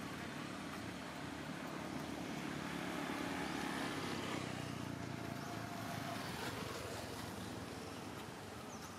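A motor vehicle's engine runs steadily nearby, swelling to its loudest about four seconds in and then easing off.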